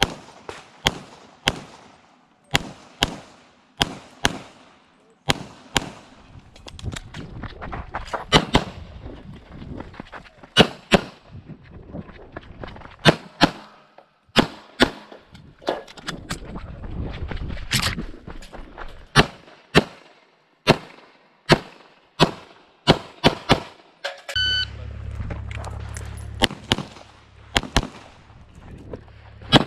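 Semi-automatic pistol firing major-power-factor competition loads in quick strings of shots, spaced irregularly from about half a second to a second apart. About 24 seconds in, a short electronic shot-timer start beep sounds, and the shooting starts again about two seconds later.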